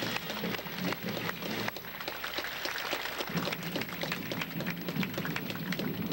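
Crowd applauding: a dense patter of many hands clapping, with a low steady sound underneath that grows stronger about halfway through.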